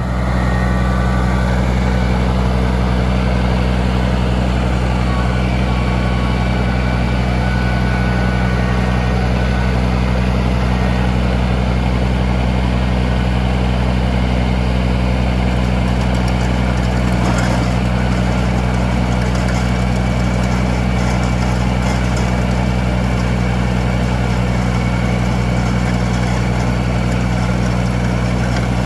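Compact tractor's diesel engine running steadily at a constant speed while it drives a rear rotary tiller through garden soil.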